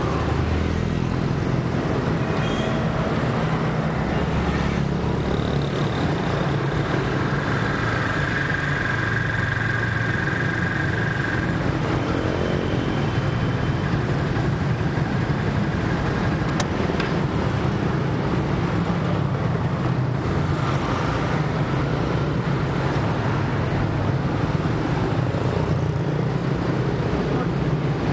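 Steady street traffic: motorbikes and cars running along a road.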